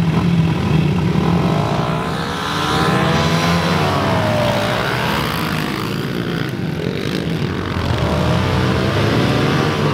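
Several small 110 cc four-stroke pit bike engines pulling away together from a start, their overlapping pitches rising and falling as they rev under hard acceleration.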